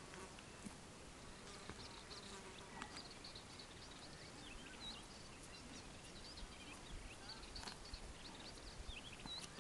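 Quiet pasture ambience: faint, scattered high chirps of small birds over a low wind rumble, with a few soft clicks.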